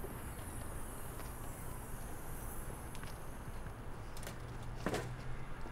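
A few faint knocks and clatters as things are moved about in a car's hatchback boot, over a low steady background hum.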